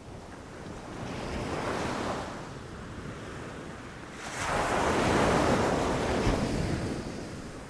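Ocean waves breaking on a beach: a smaller wave washes in about a second in, then a louder one breaks about four seconds in and hisses away, with some wind on the microphone.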